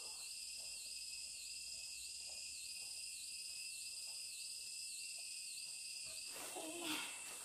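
A steady insect chorus, shrill and even, with one caller pulsing about twice a second until about six seconds in. A brief faint voice-like call comes near the end.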